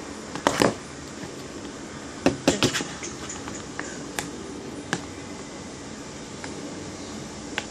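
Clear plastic box being tilted and handled with a lump of slime inside: a few sharp plastic knocks and clicks, the loudest about half a second in and a quick cluster around two and a half seconds, then a few single ticks. Steady room hum underneath.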